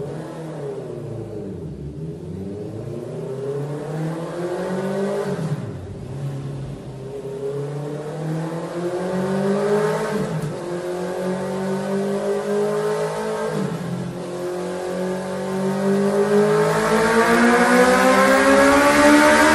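Honda CB650R inline-four engine revving through a Mivv GP Pro aftermarket slip-on silencer. The revs rise and fall several times, then climb steadily and get louder over the last several seconds.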